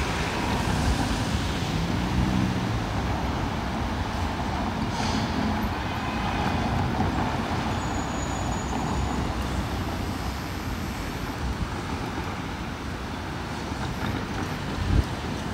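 Street traffic: cars driving past in a steady wash of road noise, with a faint engine hum early on and a light thump near the end.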